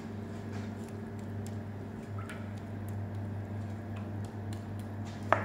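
A steady low hum with faint scattered ticks, and one sharp click just before the end.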